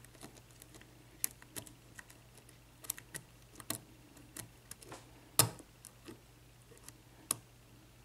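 Lock pick working the pin tumblers of a Sargent six-pin padlock under tension, with faint, irregular small clicks as the pins are lifted and set. The sharpest click comes about five seconds in.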